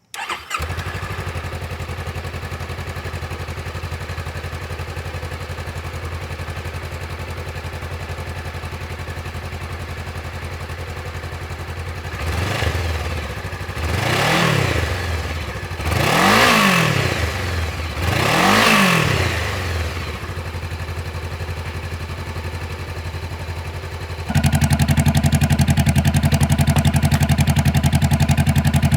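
2018 Honda CBR500R parallel-twin engine starting and settling into a steady idle through the stock muffler, then blipped four times in quick succession, each rev rising and falling, before dropping back to idle. Near the end the idle is suddenly much louder, with the muffler removed, a straight-piped sound.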